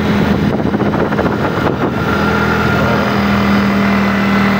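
Motorcycle engine running steadily under way, a constant hum that settles into an even pitch about two seconds in, over road and wind noise.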